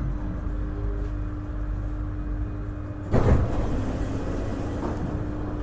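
Subway train running: a low steady rumble with a steady hum, and a loud clatter about three seconds in.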